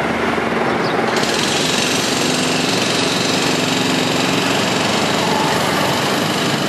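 Steady engine and road noise of a moving vehicle. A brighter hiss joins about a second in.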